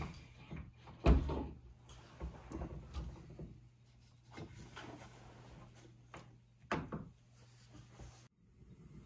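Knocks, bumps and clicks of someone handling things under a wooden layout benchwork, with a loud thump about a second in and another sharp knock near the end, over a faint low hum that stops just before the end.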